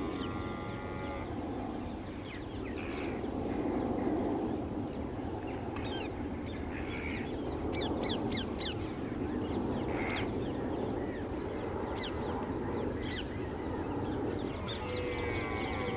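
Outdoor dawn ambience: crows cawing a few times and other birds giving short calls, over a steady low rumble of distant background noise. A long wavering call fades out in the first second and another begins near the end.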